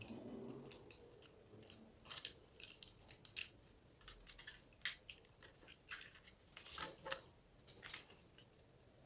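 Faint, scattered small clicks and taps from hands handling the drone's small parts, about a dozen spread irregularly over several seconds.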